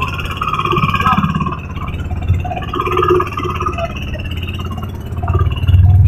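Small motorboat's engine running steadily while under way, getting louder near the end.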